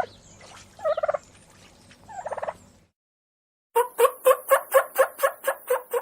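Turkey calling: three rattling, gobble-like calls about a second apart, then, after a short silence, a quick run of evenly spaced calls at about four a second.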